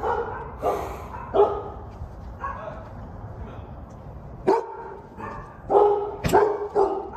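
A dog barking: a series of short barks spaced irregularly, with a quick run of three near the end.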